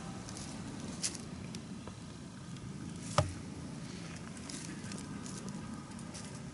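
Faint rustling and patter, as in dry woodland leaf litter, with scattered light ticks. A sharper click comes about three seconds in.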